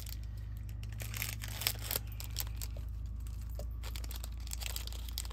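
Small plastic packet crinkling and being torn open, with scattered sharp crackles over a steady low hum.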